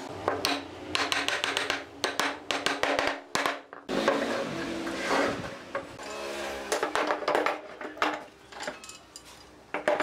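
Repeated sharp knocks and clicks of hardwood frame pieces being handled, pushed together at their glued joints and set down on a wooden workbench. In the second half, metal pipe clamps clank as they are laid across the bench.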